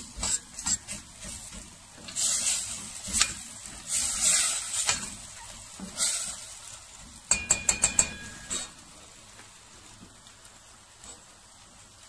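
Spatula stirring and scraping seafood and flour around a metal pot as it fries in butter, with a light sizzle. Past the middle comes a quick run of about six metallic clinks. After that only a faint sizzle remains.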